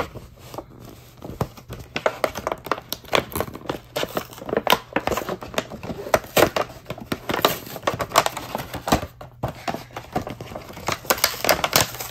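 Clear plastic blister pack crinkling and crackling as it is pried and torn away from its cardboard backing card, the card tearing unevenly. Many irregular sharp crackles, thickest near the end.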